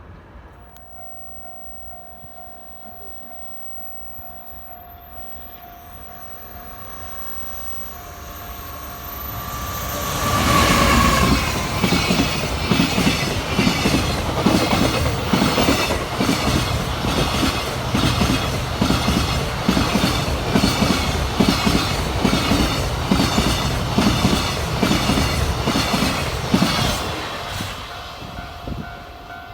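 A long freight train hauled by a JR Freight EF210 electric locomotive passes at speed, container flat wagons clattering in a steady clickety-clack over the rail joints. It builds up about a third of the way in, stays loud for about fifteen seconds, and fades near the end. The level crossing's warning bell rings steadily before and after the train.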